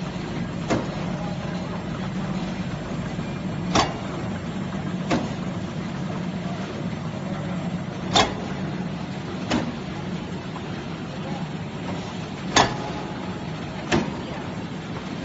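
Paper edge protector production line running with a steady low hum, punctuated by sharp clacks in pairs (a louder one, then a fainter one about a second and a half later) repeating about every four and a half seconds, as the cutting unit chops the cardboard edge board to length.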